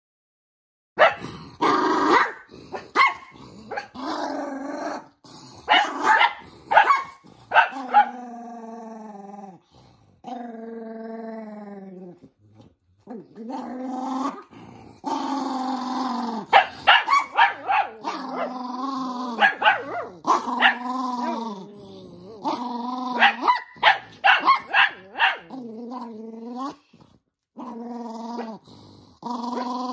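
Toy poodle growling and snarling in long, wavering bouts broken by sharp barks, angry at having a sock pulled onto its paw. It starts about a second in.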